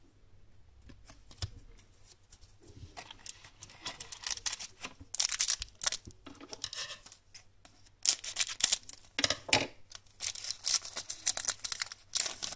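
Hockey card pack wrapper being torn open and crinkled by hand, in several irregular rustling spells, the loudest about halfway through and toward the end.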